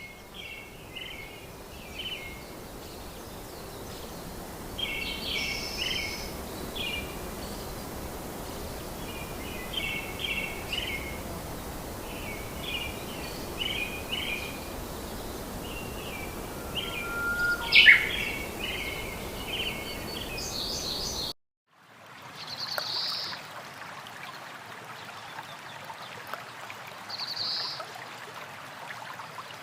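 Small birds chirping in short, repeated phrases over a steady outdoor background hiss, with one sharper, louder call near the middle. About two-thirds through the sound cuts to a quieter background, where a bird gives two brief high calls.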